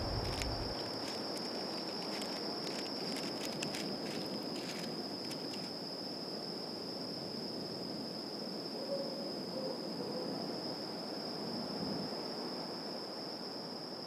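Dusk ambience: a steady, high-pitched insect trill held without a break, over a faint background hiss. Scattered short ticks come in the first few seconds.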